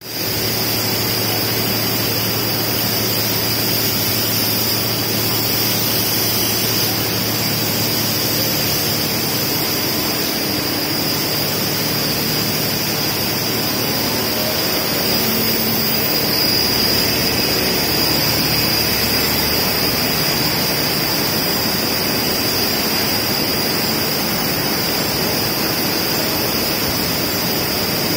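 Steady, loud hiss of an industrial humidification system's spray nozzles misting from overhead lines, blended with the constant din of running factory machinery and air conditioning, with a thin high whistle running through it.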